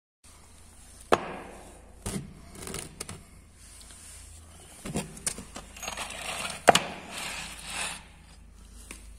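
A wooden board studded with nails is being handled and set down on a concrete floor. There are a series of sharp wooden knocks with scraping in between, and the loudest knock comes about two-thirds of the way through.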